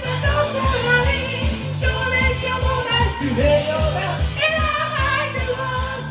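High singing over a J-pop backing track with a steady, pulsing bass beat.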